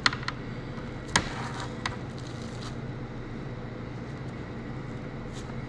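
Steady low hum in the background, with a few light clicks and taps as a spoon and gloved fingers scoop and push soft chocolate ganache on plastic film; the sharpest tap comes about a second in.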